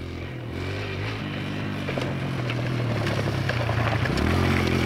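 Kawasaki KLX 140G dirt bike's single-cylinder four-stroke engine running under way, growing louder as the bike approaches. Its note shifts pitch about a second in and again near the end as the rider works the throttle.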